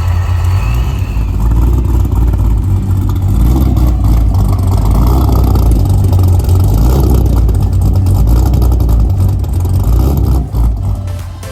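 Supercharged C6 Corvette's V8 running loud as the car drives, a dense low engine rumble that drops away about ten and a half seconds in.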